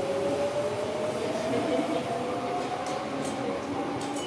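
Shizuoka Railway 1000 series electric train accelerating away, its traction motors whining in a tone that climbs slowly as it gathers speed, over steady rumbling on the rails.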